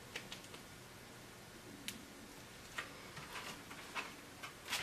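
Quiet room with a few faint, scattered ticks and rustles as a hardcover picture book is handled and its pages turned.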